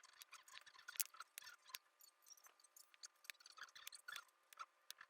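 Faint, irregular small clicks and light scraping, like small objects being handled; one sharper click about a second in is the loudest.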